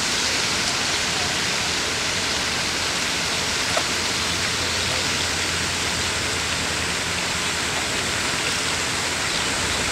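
Pond spray fountain splashing: a steady, even rush of falling water.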